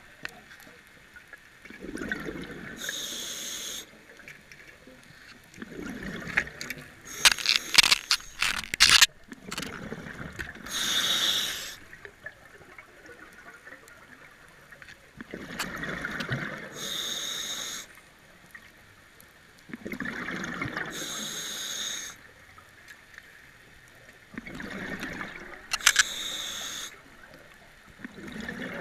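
Scuba diver breathing through a regulator underwater: slow cycles of hissing inhalation and rumbling exhaled bubbles, about six breaths. A cluster of sharp clicks and knocks comes about seven to nine seconds in.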